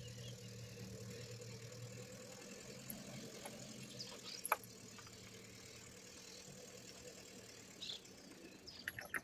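Car engine idling quietly, its low hum fading somewhat about halfway through. A single sharp click about four and a half seconds in.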